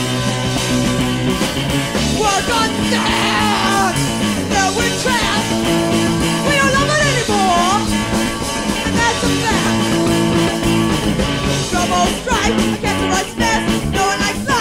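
Rock band playing a song, with electric guitar and pitch-bending melodic lines over sustained chords.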